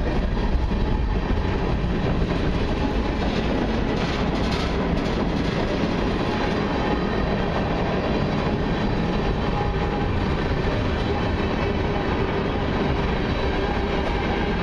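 Freight train of tank cars and covered hoppers rolling slowly past, a steady sound of steel wheels running on the rails.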